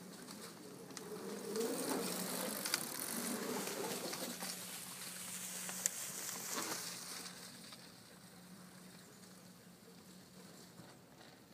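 Mountain bikes rolling through dry fallen leaves, tyres crackling in the leaf litter with the buzzing tick of a coasting freewheel hub and a few sharp clicks. Loudest in the middle, then fading as the bikes move off.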